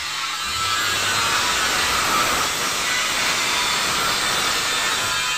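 Steady rasping of a car bumper being sanded, starting about half a second in.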